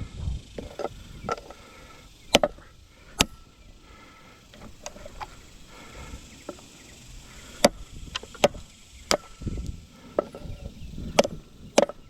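About seven sharp, irregularly spaced knocks as the pool pump is struck while being worked loose from its motor, with scraping and handling noise between the blows.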